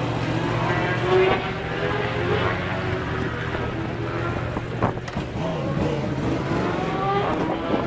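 Motorcycle engines revving and running in the background over a steady low hum that drops away about five seconds in, with a few rising pitches near the end as engines accelerate.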